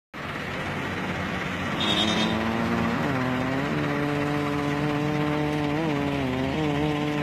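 Massey Ferguson 385 tractor's four-cylinder diesel engine working under load as it pulls a heavily laden sugarcane trailer. The engine note climbs about two to three seconds in and then holds steady, with slight rises and dips.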